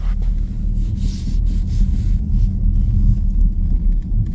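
Low, steady rumble of a car heard from inside the cabin, with a few faint scuffs.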